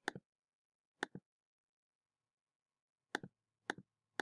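Four faint computer mouse clicks, each a quick press and release, entering keys on an on-screen calculator: one at the start, one about a second in, then two close together after a pause of about two seconds.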